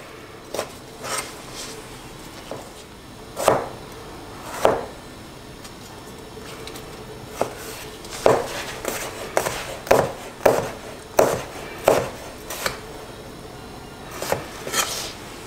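Kitchen knife dicing tomatoes on a cutting board: separate knocks of the blade striking the board, sparse at first, then coming more often, about one to two a second, in the second half.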